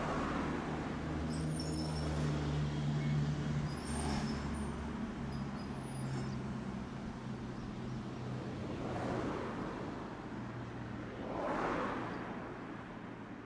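Tosaden streetcar running, heard from inside the car: a steady low motor hum with faint high-pitched squeals between about 1.5 and 6 s. Two swells of rushing noise come later, and the sound tapers off near the end.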